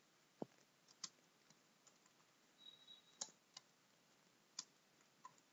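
Faint, scattered keystrokes on a computer keyboard, about eight separate key clicks at an uneven pace, the loudest one about half a second in with a dull thud.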